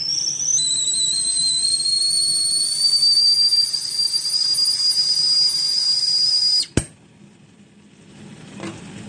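Stainless steel stovetop whistling tea kettle whistling loudly at the boil: a high two-note whistle that creeps slowly up in pitch. About seven seconds in it breaks off with a quick downward slide.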